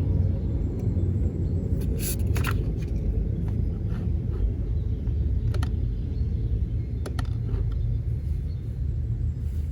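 Steady low rumble of ambient background noise, with a few faint clicks about two, five and a half and seven seconds in.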